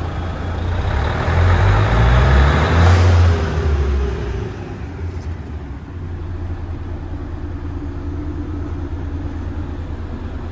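Mercedes Actros 1844's V6 turbo diesel idling with a steady low rumble. About a second in it swells louder for a couple of seconds, then settles back to an even idle.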